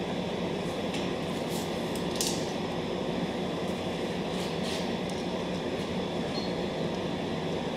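Steady mechanical hum and hiss of shop background noise, like a fan or air-handling unit running, with a few faint light clicks as small parts are handled.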